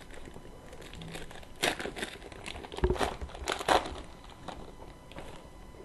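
Trading cards and their foil pack wrapper being handled: a run of short crinkling, rustling sounds about one and a half to four seconds in, then a few fainter ones.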